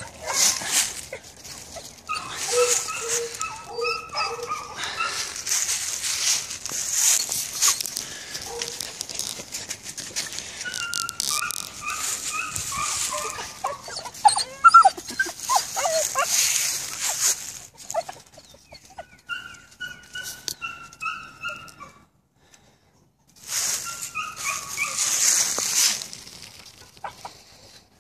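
Beagle pups whining and yipping in strings of short, high calls, over scratchy rustling noise.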